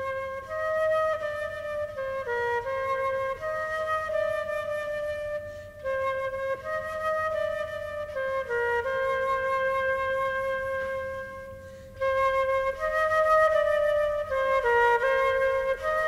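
Background music: a slow, single-line flute melody, its phrases starting afresh about every six seconds.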